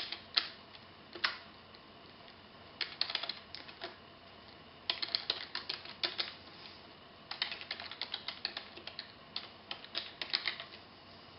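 Computer keyboard being typed on: runs of quick key clicks, a second or two at a time, broken by short pauses.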